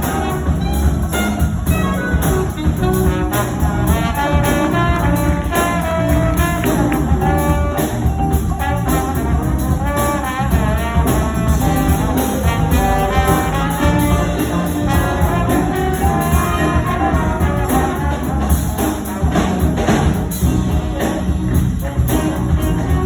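Live big-band jazz with a brass section of trumpets, trombones and saxophones playing over a steady drum and bass groove.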